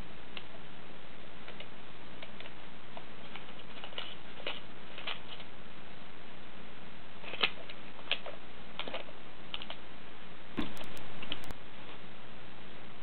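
A cat pawing and clawing at a small lizard cage: irregular light clicks and taps, in a cluster about four seconds in and another from about seven seconds, with a louder burst of about a second near the end.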